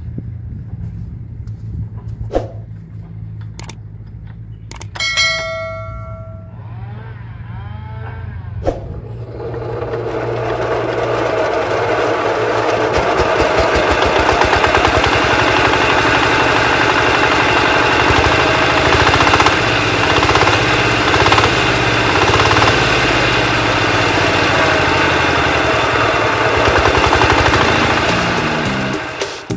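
Tractor engine idling, with a few sharp knocks and a ringing metallic clank. From about ten seconds in it runs faster and louder and holds steady, running with its newly fitted exhaust pipe.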